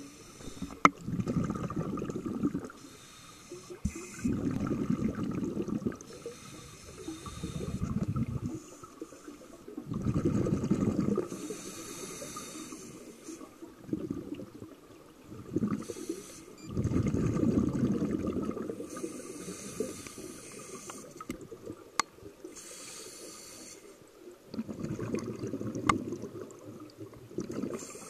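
Scuba diver's regulator breathing, heard underwater: exhaled bubbles rumble out in bursts of a second or two every few seconds, with a thin hiss of inhaling between them and a few sharp clicks.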